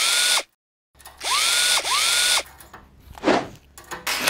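Cordless drill-driver driving M12 set screws to fix a tube clamp onto a steel clamp: the motor whines up in pitch and holds in three short runs, the last two back to back.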